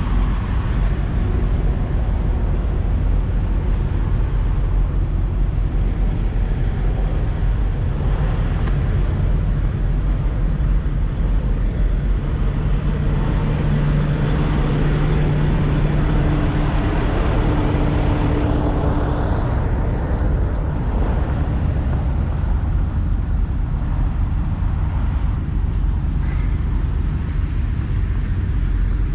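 Parked diesel semi trucks idling: a steady low rumble, with one engine's hum standing out about halfway through as it is passed up close.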